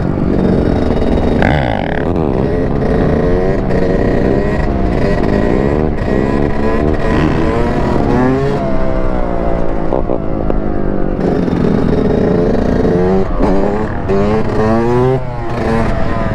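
Two-stroke Yamaha YZ125 dirt bike engine revving up and down over and over while ridden in a wheelie, its pitch climbing and dropping every second or so.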